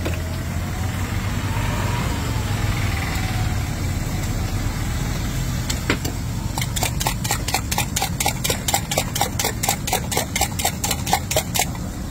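A steel spoon clinking rapidly against a small steel cup, about five strikes a second, starting about halfway through and stopping just before the end. Under it runs a steady low rumble.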